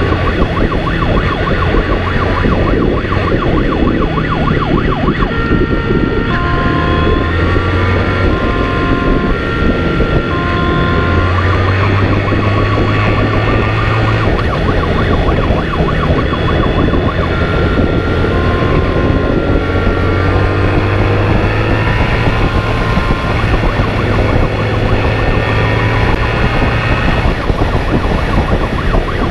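Emergency siren switching between a high-low two-tone wail and a fast warble, over a motorcycle engine running at speed and wind rush.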